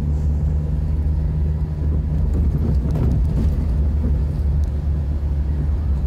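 Steady low rumble of a car being driven slowly, heard inside the cabin: engine and road noise.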